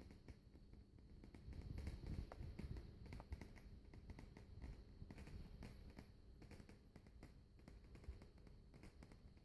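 Faint, irregular ticking and clicking from a Vicol shigaclone's CD player, over a low rumble and a thin steady whine. This is the strange noise the player makes.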